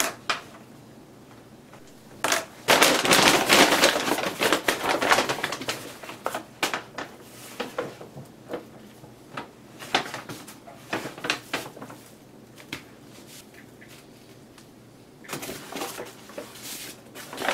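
Brown paper bag rustling and crinkling as it is opened out and laid flat, a few seconds of dense crackling followed by scattered small crinkles and taps. Another burst of paper-bag rustling comes near the end.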